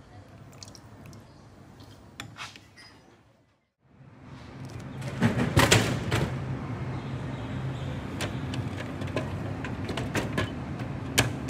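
A few faint spoon clicks against a bowl, then a drinks vending machine in use: a cluster of loud clicks and clatter about halfway in as a drink is chosen and dispensed, over a steady low hum. Near the end comes a sharp click as the plastic flap of the delivery tray is pushed in to take out a bottle.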